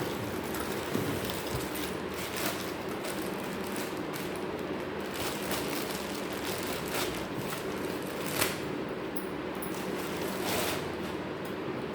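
Rustling and clicking handling noises from unpacking steel pressure cookers and their packaging, over a steady background hum, with a sharper click about eight seconds in.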